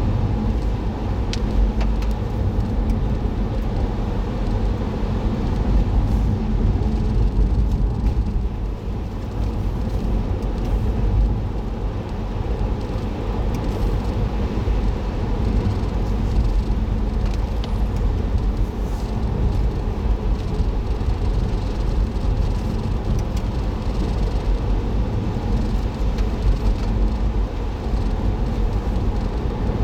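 A car driving: a steady low rumble of engine and road noise, heard from inside the car through a dashboard camera's microphone.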